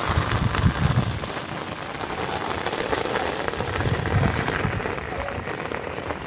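Steady rain falling and pattering on surfaces, with gusts of wind rumbling on the microphone about a second in and again past the middle.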